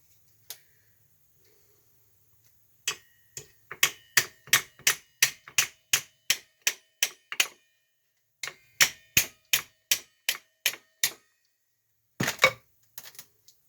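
Hammer blows on steel, a quick series of ringing metallic strikes at about three a second, in two runs with a short pause between and a few more near the end, knocking at a stuck part of an 8 3/4 rear axle assembly.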